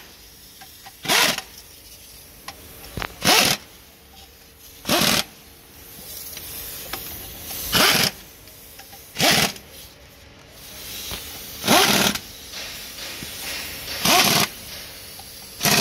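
Pneumatic impact wrench hammering in short bursts, about eight trigger pulls one to three seconds apart, as it runs down the bolts of a truck clutch pressure plate.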